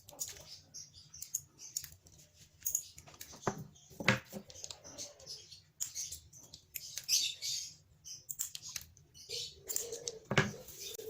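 Small wire cutters snipping component leads, sharp clicks with the loudest about four seconds in and again near the end, among scattered taps and rustles of parts being handled.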